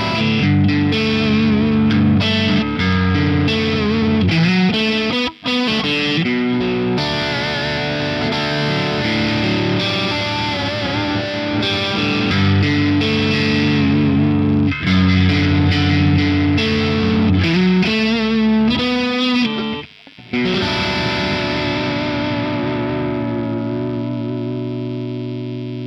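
Distorted electric guitar played through effects, improvising chords and riffs. It breaks off briefly about five and twenty seconds in, then ends on a long held chord that slowly fades.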